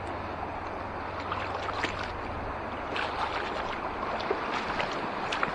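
River water rushing and sloshing steadily, with a few short splashes.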